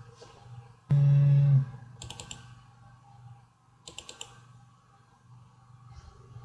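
Computer mouse clicking in quick clusters of several clicks, about two seconds in and again about four seconds in, over a faint steady low hum. A short, low hummed 'mm' from a voice about a second in is the loudest sound.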